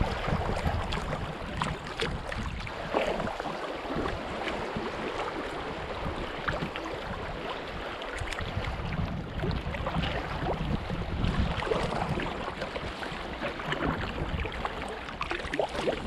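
River current rushing and splashing along a sea kayak's hull as it drifts downstream, with wind buffeting the microphone.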